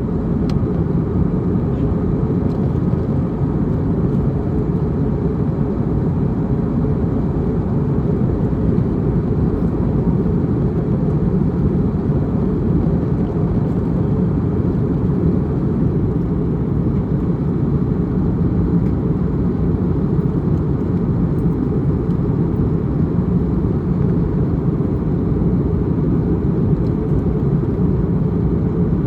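Airbus A321neo cabin noise during the descent: a steady, low rush of airflow and engines that stays even throughout.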